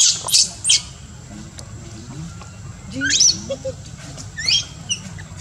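Newborn macaque crying: three short high-pitched squeals in the first second, then rising squeals about three seconds in and again near the end.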